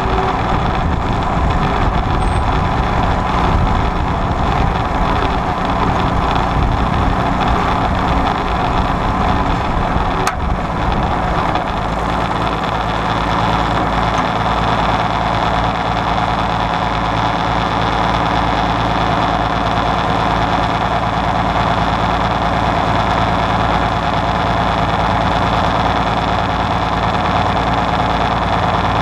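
Allis-Chalmers WD45 diesel tractor's six-cylinder diesel engine running steadily under load while pulling a rollover plow through stubble. There is a brief click about ten seconds in.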